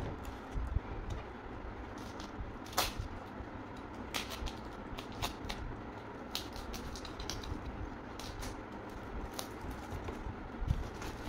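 Plastic cling film crinkling and crackling as it is pulled off ridge gourds, with a scatter of short sharp crackles over faint handling noise.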